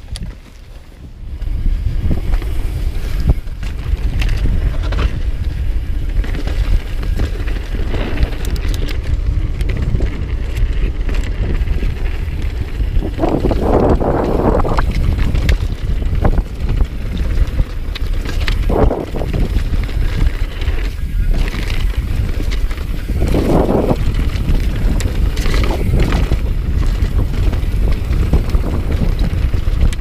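Wind buffeting an action-camera microphone, with tyres crunching and the bike rattling as a mountain bike descends a dirt trail at speed. It picks up about a second and a half in, and two brief louder noises stand out near the middle.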